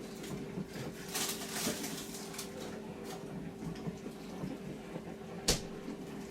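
Bosch SKS60E02GB compact dishwasher running a wash cycle: a steady pump hum under water spraying and splashing inside the tub, with a single sharp knock about five seconds in.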